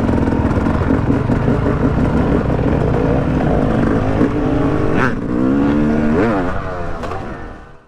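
Yamaha YZ250X two-stroke dirt bike engine running while ridden, its revs rising and falling. There is one sharp knock about five seconds in, and the sound fades out at the end.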